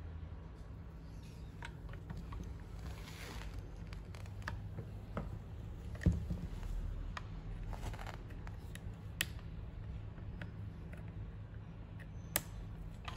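Scattered small metallic clicks, taps and scrapes as two-stroke brushcutter engine parts are handled and fitted by hand, with one louder knock about six seconds in. A steady low hum sits underneath.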